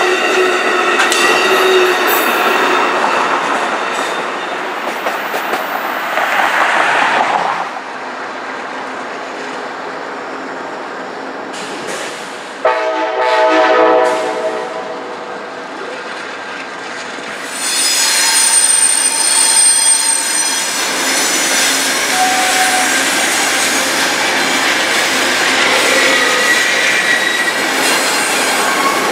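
Amtrak passenger train of bilevel Superliner cars rolling past, its wheels squealing on the rails. About halfway through, the Genesis locomotive sounds one short blast of its chime horn. After that the cars roll by again with steady squeal and rail noise.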